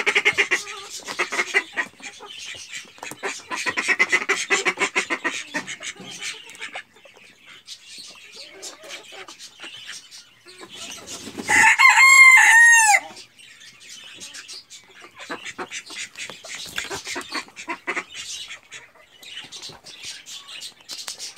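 Chickens clucking, dense for the first few seconds and sparser after. About halfway through, a rooster crows once for about a second and a half, the loudest sound.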